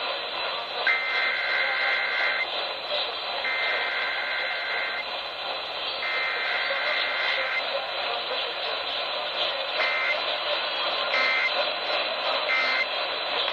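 Emergency Alert System SAME data bursts heard over AM radio: three long screechy bursts of two rapidly alternating high tones (the test header), then three short bursts near the end (the end-of-message code). A steady radio hiss runs underneath.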